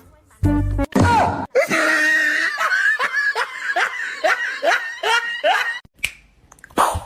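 A person laughing in a run of short, rhythmic bursts, about two or three a second, which fades out near the end.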